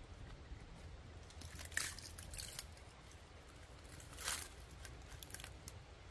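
Split firewood cracking and splintering as it is pulled apart by hand: a few sharp cracks, the loudest and longest about four seconds in.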